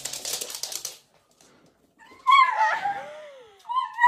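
A short clattering rustle, then a small dachshund whining and yelping in high cries that glide downward, with a second, shorter cry near the end. The dog is crying at its own reflection in a mirror.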